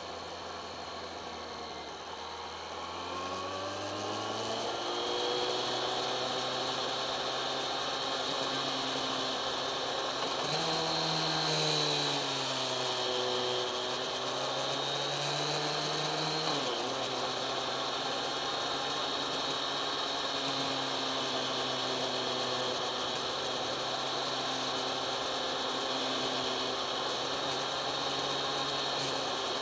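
Kawasaki ZX-10R inline-four engine under way, its note rising over the first few seconds, rising and dipping again through the middle, then holding steady, with wind rush underneath.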